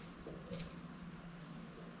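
Faint room tone with a low steady hum and one soft click about half a second in.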